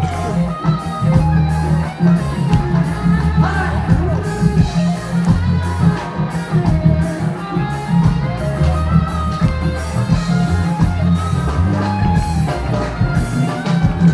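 Live band music with guitar, bass and drums and a steady beat, with some singing.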